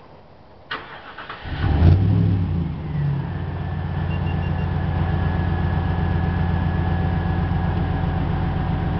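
Dodge Ram pickup started by remote start: a short click, then the engine cranks and catches about a second and a half in, flares up briefly and settles into a steady idle through its Dynomax dual exhaust.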